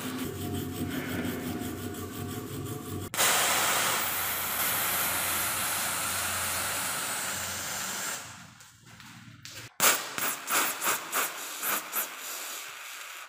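A stiff brush scrubbing a rusty steel hammer head in quick strokes, then a steady spray hiss as white foam is sprayed onto it, ending in a string of short spurts of spray.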